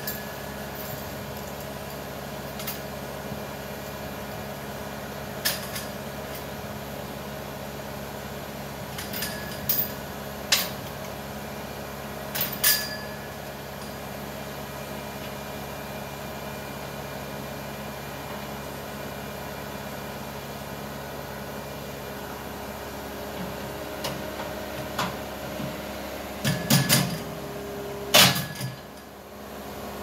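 Thomas 243HD turbocharged skid steer engine idling steadily, with scattered sharp metallic clinks and clanks of a chain being handled against the steel bucket. A cluster of louder knocks comes near the end.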